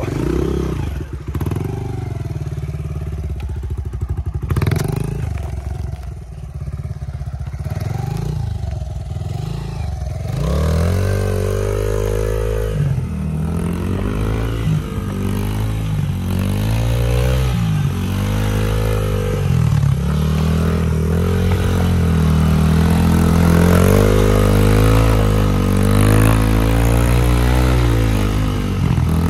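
Honda dirt bike's small engine running while ridden through mud, steadier at first, then revving up and down in repeated surges from about ten seconds in.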